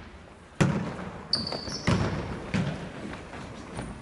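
A fistball being struck and bouncing on a sports-hall floor. There are two sharp, echoing thuds about a second and a half apart and a smaller one after them, with a brief high squeak between the thuds.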